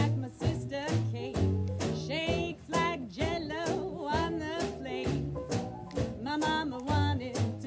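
Small swing jazz band playing: a woman singing a melody with vibrato over piano, double bass and drum kit keeping a steady beat.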